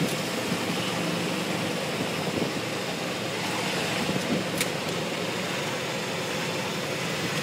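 Golf cart running steadily while driving along a street, an even low hum with road noise.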